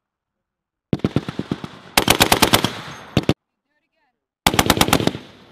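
M2 .50-caliber heavy machine gun firing in rapid bursts of about eight rounds a second. A longer burst starts about a second in and gets louder halfway through, then a shorter burst follows near the end.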